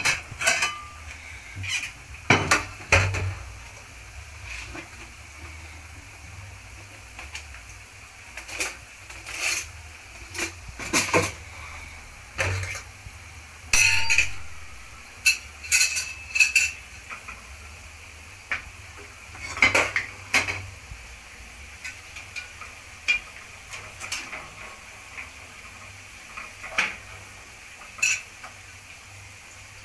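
Crockery and kitchen utensils clinking as chips masala is dished up: a serving spoon knocks against a frying pan and a plate. The clinks are sharp and irregular, some ringing briefly, with the loudest near the start and in the middle.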